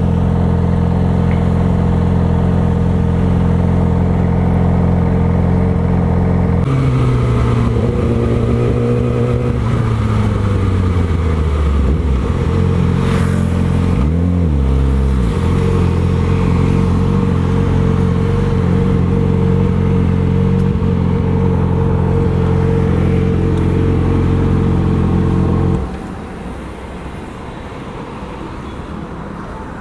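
Yamaha R6's inline-four engine running through a new full-system aftermarket exhaust at steady revs. About a third of the way in the pitch slides down; halfway through it briefly dips and comes straight back up, then holds steady until the sound turns quieter near the end.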